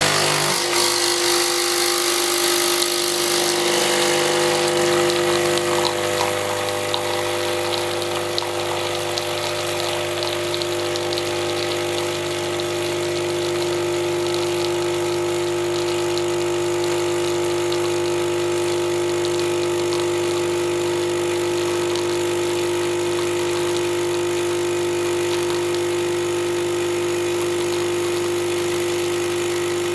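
Espresso machine running with a steady, even hum. A brighter hiss sits over it for the first few seconds, then fades.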